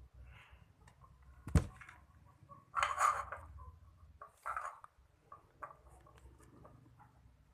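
Wet, sticky squelches from a clear-glue slime being mixed, in two short bursts, with a sharp click about a second and a half in and small clicks scattered throughout.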